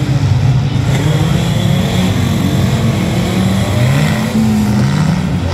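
Several banger racing cars' engines revving at once, their pitches rising and falling over one another.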